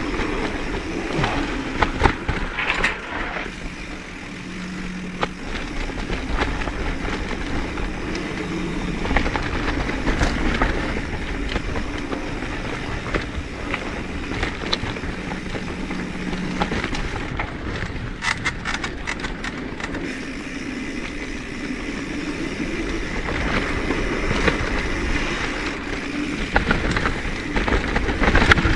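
Mountain bike rolling down a dirt trail: steady tyre noise with rattling and sharp knocks from the bike over rough ground.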